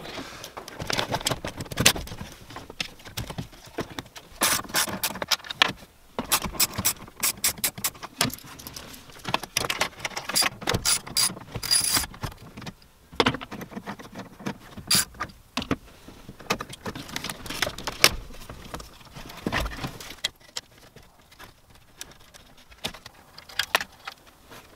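Clicks, rattles and knocks of a Toyota Tundra's factory head unit being unbolted with a 10 mm socket on an extension and pulled out of the dash, with several runs of quick clicks. It grows quieter in the last few seconds.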